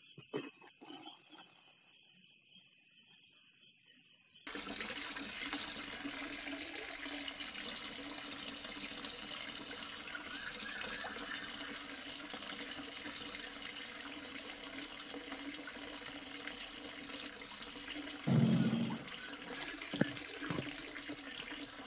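Water spraying from a small hose fed by a mini water pump and splashing onto soapy toy tractors, starting abruptly about four seconds in and running steadily. Near the end there is one short, louder thump.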